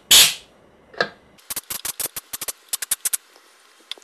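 Compressed-air blow gun from a compressor blasting dirt out of a carburetor cavity: one short hiss of air at the start, a click about a second in, then a quick run of short air puffs, about eight a second, for nearly two seconds.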